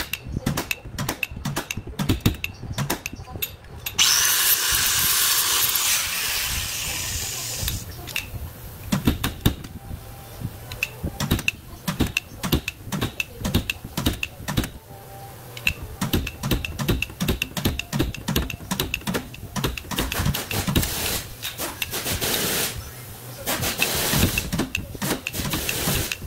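Body hammer tapping out the steel wheel-arch panel of a Hyundai Santa Fe in quick, rhythmic strikes, a body shop straightening accident damage. Stretches of steady hiss break in, the loudest starting about four seconds in and lasting about four seconds.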